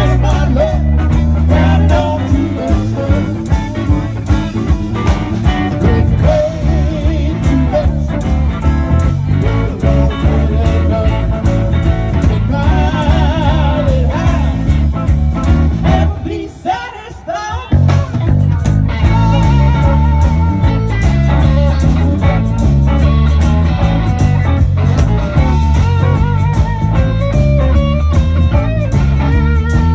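Live blues-rock band playing through a PA: electric guitars over bass and a steady beat. The bass and beat drop out briefly about halfway through, then the full band comes back in.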